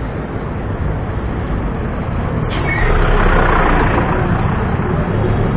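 City road traffic heard from a moving bicycle, with a steady low rumble. A sharp click comes about two and a half seconds in, and a louder hiss swells just after it and lasts over a second.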